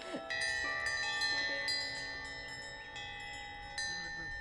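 Bronze Arcosanti windbells ringing: several bell tones overlap, hold and slowly fade, and a fresh strike comes near the end.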